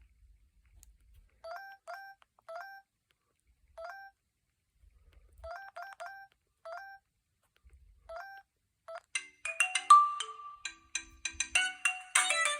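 Preloaded ringtones playing through a Huawei U5310 phone's small speaker: first a sparse tune of short electronic beeps, each note sliding up a little at its start. About nine seconds in, a busier and louder ringtone with many quick high notes starts.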